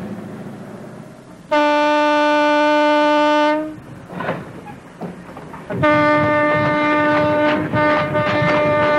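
Diesel locomotive's air horn sounding two blasts on one steady note: a two-second blast about one and a half seconds in, then a longer one starting near six seconds, with a brief break partway through. A low rattle runs under the second blast.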